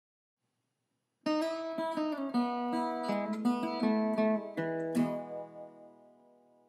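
Intro music on acoustic guitar, starting about a second in: a short picked phrase ending on a strummed chord that rings out and fades.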